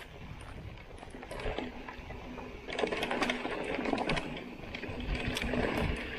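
Mountain bike riding fast down a stony dirt trail: tyres crunching over gravel and rocks, with a stream of clicks and rattles from stone strikes and the bike itself, busiest in the second half. A rapid buzz from the rear hub's freewheel comes and goes as the rider coasts.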